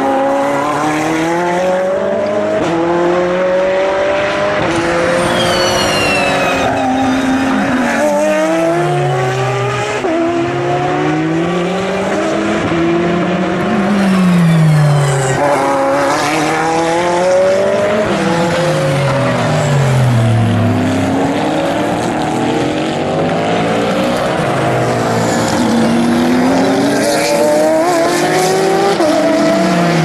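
Endurance race cars, prototypes and GT cars, passing one after another with no break. Their engine notes overlap: revs fall in steps as they brake and downshift into the slow corner, then climb through the gears as they accelerate away.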